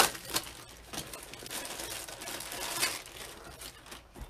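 Plastic deco mesh crinkling and rustling as it is pulled and handled by hand, with a string of sharp clicks, the loudest right at the start.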